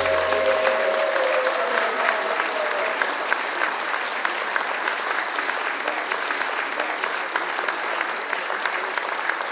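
Studio audience applauding steadily at the end of a song, with a held note fading out in the first three seconds.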